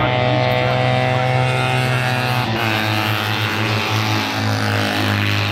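Engine of a racing sidecar outfit running on the track. It makes a steady drone that drops in pitch about two and a half seconds in, then holds at the lower note.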